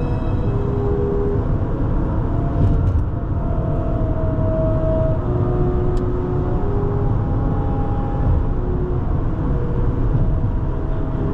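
Steady low road noise of a car driving, with soft held orchestral notes faintly over it and a brief click about six seconds in.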